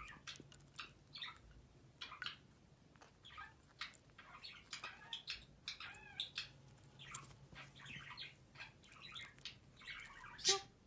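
A black-headed caique working at a seed and a cardboard tube with its beak: a steady run of small clicks and scrapes mixed with a few soft chirps, and one louder sharp sound near the end.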